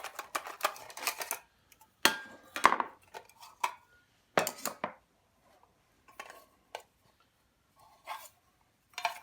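Metal camp cookware, including a Sierra cup, being handled: a string of separate clinks and knocks, a few of them about two to three seconds in leaving a short metallic ring.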